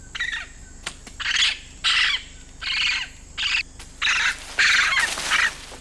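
A wild animal in the rainforest canopy calling in a run of short cries, about one every half second, loudest near the end.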